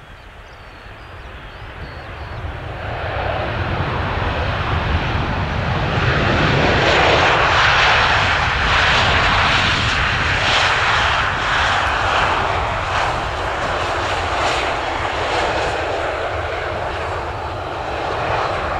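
Boeing 737-800 landing. Its twin CFM56 turbofan jet engines grow louder over the first several seconds as it comes by, then stay loud.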